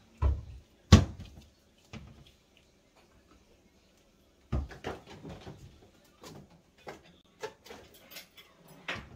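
Wooden kitchen cupboard doors opening and shutting, with the loudest knock about a second in. From about halfway there is a run of clatter and small knocks as a bottle and other things are set down on the stone counter.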